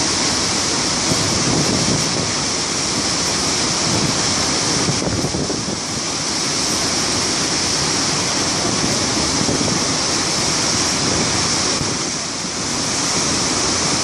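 A large waterfall's loud, steady rush of water falling into a gorge, dipping slightly in level twice.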